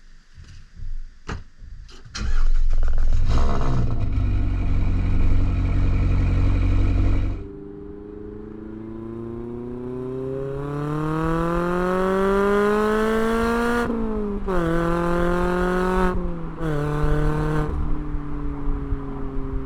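Mazda MX-5 ND2's 2.0-litre four-cylinder through a Goodwin Racing RoadsterSport RACE exhaust: a few clicks, then the engine starts and idles loudly. Then a full-throttle pull, the note rising steadily before dropping at two quick upshifts near the end.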